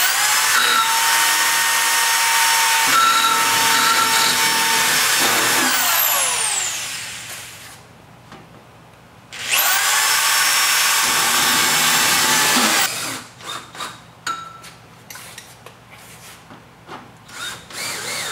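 Corded power drill driving screws through a rolling shutter's hood into the wall. One long run of about six seconds winds down in pitch as the motor stops, and a second run of about three and a half seconds follows. Several light clicks and taps come near the end.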